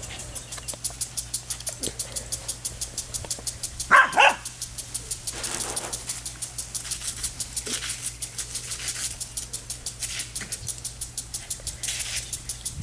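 Impact sprinkler ticking fast and evenly, about six ticks a second, with the hiss of its spray swelling now and then. A dog barks twice in quick succession about four seconds in.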